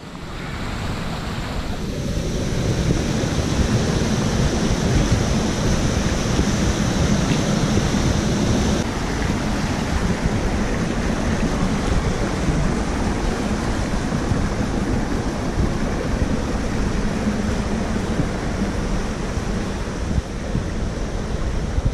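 Small stream rushing and splashing over mossy rocks in little cascades: a steady rushing noise.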